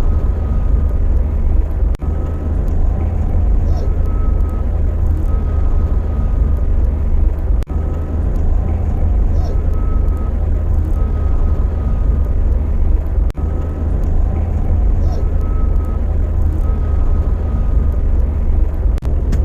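Car driving, with a steady deep rumble of engine and road noise.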